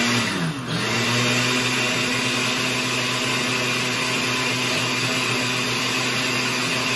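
Countertop electric blender running, blending a seafood cream mixture with water. Its motor briefly slows and spins back up about half a second in, then runs at a steady, high whirr.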